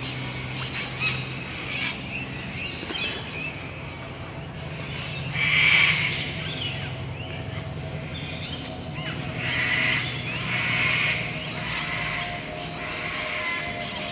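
Sulphur-crested cockatoos screeching, loudest about six seconds in and again several times from about ten seconds on, among many short bird chirps, over a low steady hum.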